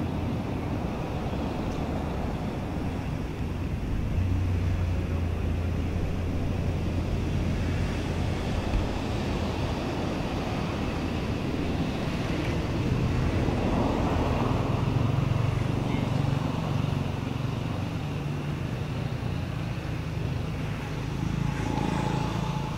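A motor vehicle's engine running with a steady low hum that grows louder about four seconds in and rises in pitch about thirteen seconds in, over outdoor background noise.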